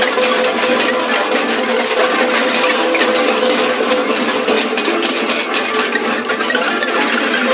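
Prepared classical guitar with clips fixed on its strings, played with extended techniques, including a plastic bag rubbed against the strings. It gives a dense crackling, rattling noise, with a held tone that fades about halfway through.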